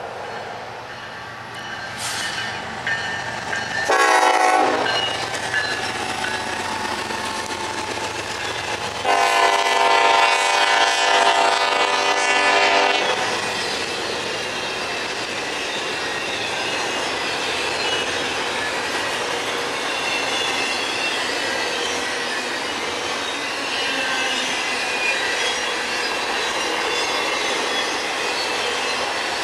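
Norfolk Southern EMD SD70ACe locomotive sounding its horn: a short blast about four seconds in, then a long blast lasting about four seconds. After that comes the steady rolling noise and clickety-clack of the intermodal train's container and trailer cars going past.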